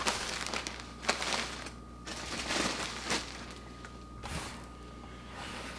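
Bursts of rustling and crinkling as packaging and fabric are handled during unpacking, with a light knock about three seconds in.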